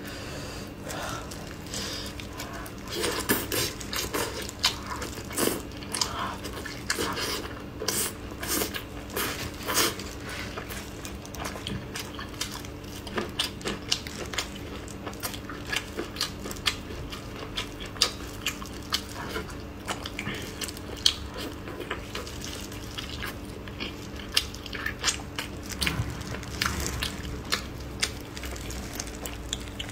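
Close-up eating sounds: wet chewing and lip smacks on braised pork ribs, with the sticky sounds of gloved hands pulling glazed meat off the bones. Many short clicks and smacks come throughout over a faint steady hum.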